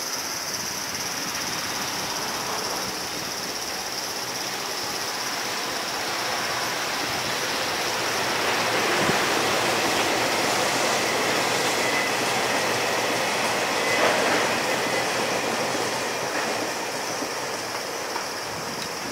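Freight train of tank wagons hauled by an EF210 electric locomotive rolling past on the tracks. The steady rumble of wheels on rail grows louder about halfway through as the wagons pass close, then eases slightly near the end. A steady high insect buzz runs underneath.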